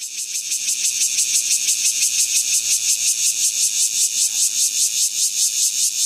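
Cicada singing at close range: a loud, high, rapidly pulsing buzz that swells up over the first second and then holds steady.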